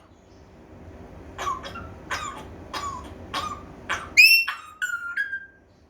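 African grey parrot mimicking a human cough: a run of about six short, dry coughs. Near the end it gives a loud, high whistle, followed by a lower, held whistle.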